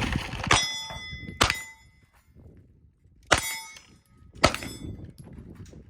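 Four 9mm Glock 19 pistol shots, each followed at once by the ringing clang of a steel target plate being hit; two come about a second apart, then a pause of nearly two seconds, then two more.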